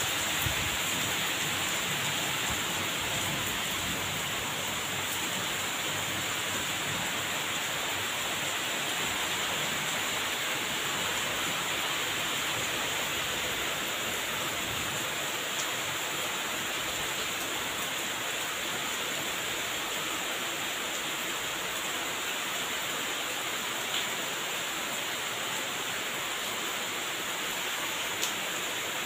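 Heavy rain falling steadily on leaves and wet ground: a dense, even hiss with a few faint ticks from single drops.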